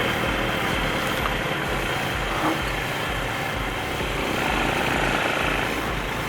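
ATV engine running steadily while the quad is ridden along, under an even rush of noise.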